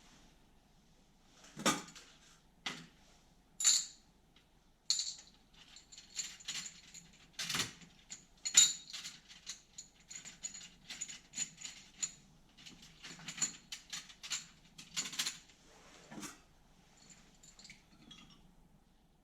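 Small metal parts clinking and tapping against each other and a hard surface, in irregular bursts of sharp clicks, as a carburetor is taken apart for cleaning. The clinks thin out near the end.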